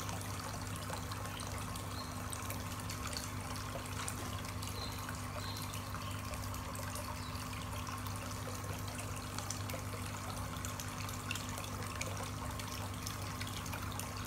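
Water trickling and dripping steadily into a small goldfish pond, with many small splashes over a steady low hum.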